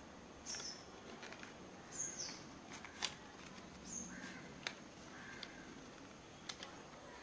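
Faint birds chirping outside, three short high calls that slide downward, mixed with a few light clicks of plastic paint tubes and caps being handled.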